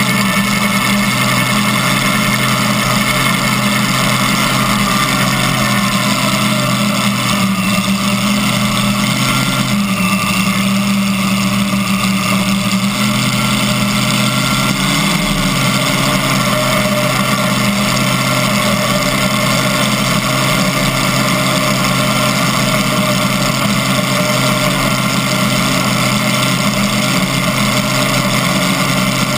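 Supercharged pulling-tractor engine with open exhaust stacks idling steadily at close range.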